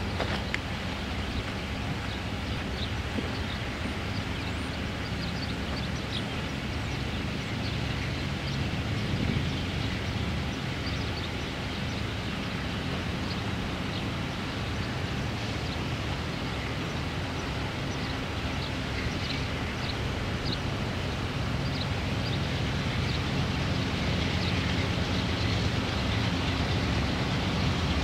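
Diesel locomotives of an approaching freight train heard from a distance: a steady low engine drone that slowly grows louder toward the end.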